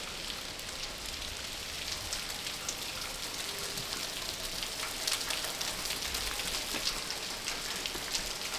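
Water pouring and dripping down, a steady rain-like splashing with many small sharp drips through it.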